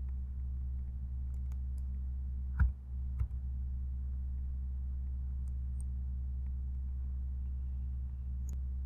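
Computer keyboard keystrokes and mouse clicks, a handful of sharp clicks with the two loudest a little over two and a half seconds and about three seconds in. Under them runs a steady low electrical hum.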